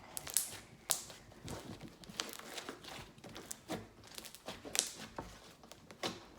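Stiff slime, hardened by added shaving cream, being squished, poked and stretched by hand, giving irregular sticky crackles and small pops.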